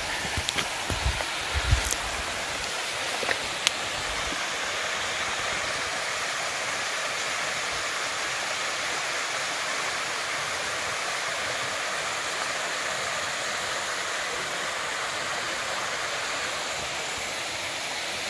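Small waterfall spilling down a rock face, a steady rushing hiss of falling water. A few low thumps and sharp clicks in the first four seconds.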